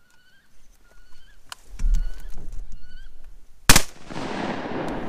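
A run of short, honking bird-like calls, then a single shotgun blast about three and a half seconds in, its report echoing on for more than a second. The shot is fired at ducks coming in over the decoys.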